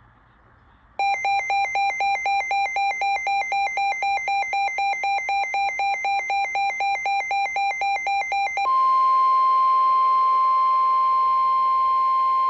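Emergency alert tones for a National Weather Service severe thunderstorm warning. An electronic two-tone warble alternates about four times a second for roughly eight seconds, then switches to a single steady alarm tone held for about five seconds.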